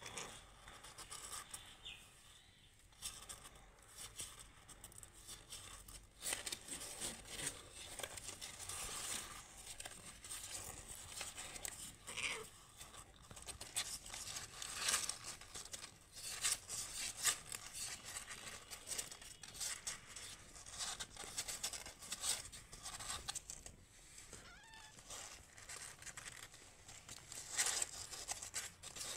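Faint, irregular rustling and crackling of fur and small paws against a cardboard box floor as newborn kittens crawl and nurse against their mother cat.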